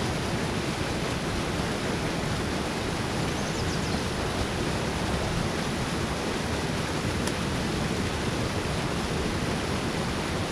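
Water rushing steadily through a small spillway outflow, an even, unbroken rush.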